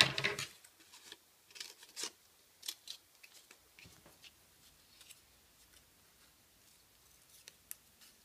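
Construction paper rustling as a sheet is handled, the loudest sound near the start, then scattered short snips and crinkles as scissors cut small circles out of green construction paper.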